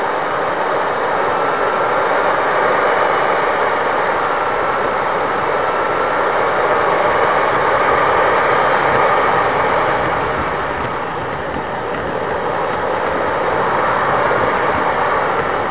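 Engine of an RC model jet running steadily on the ground, a loud even rush with a faint wavering whine in it, heard close up from on board the airframe; it eases slightly about two thirds of the way through.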